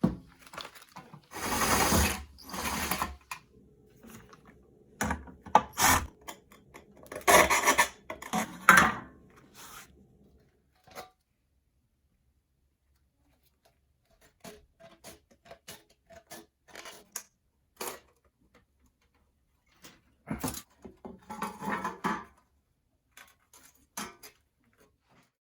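Hand tools working a thin stainless steel tray: bursts of rasping, scraping strokes broken up by sharp clicks and light metal taps, with a quiet pause about halfway through.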